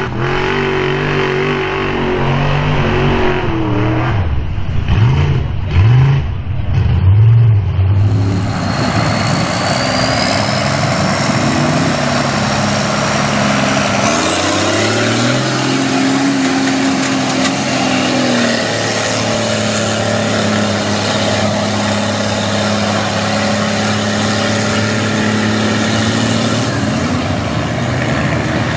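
Mega truck engines revving under load as the trucks push through a mud pit. The engine note swings up and down in several quick revs in the first seconds, then holds steadier.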